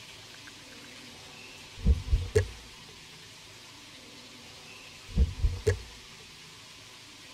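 Clusters of three low, heavy thuds in a slow, even pulse, heard twice, about two seconds in and again about five seconds in, over a steady hiss.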